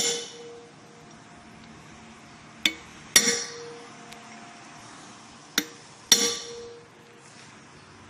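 Hammer driving a steel punch against a nut on an Isuzu Elf truck's wheel hub, staking the nut so it cannot work loose. A hard, ringing metal strike comes right at the start, then twice more a light tap followed about half a second later by a hard ringing blow, roughly three seconds apart.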